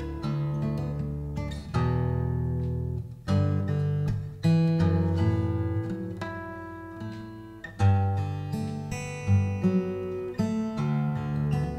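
Steel-string acoustic guitar played fingerstyle: a blues with picked melody notes and chords over ringing bass notes, each note plucked and left to fade.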